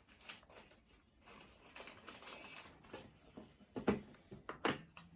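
Small plastic kit parts being handled and fitted together: faint rustling and light clicks, with two sharper clicks near the end.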